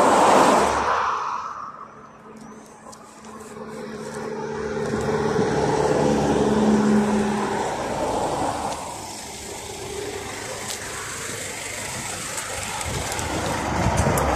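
A car passes close by at the start, its noise swelling and fading within about two seconds. Then a GAZelle Next minibus with a Cummins 2.8 engine draws up: its engine drone grows to a peak a few seconds in and eases off as it stops. Near the end the engine is heard running from inside the minibus.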